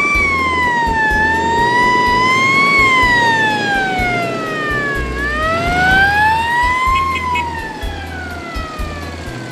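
Siren of a vintage emergency vehicle wailing, its pitch rising and falling in slow, uneven sweeps of one to three seconds each, growing fainter near the end. A low rumble runs underneath.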